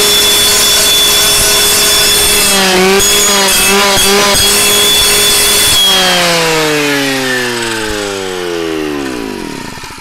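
Clearing saw's two-stroke engine at full throttle, its circular blade grinding against a boulder with a loud, harsh rasp. About six seconds in the grinding stops, and the saw winds down with its pitch falling steadily until it dies away near the end.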